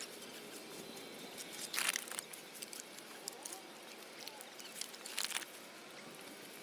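Small stream trickling steadily, with two short louder bursts about two seconds in and just after five seconds.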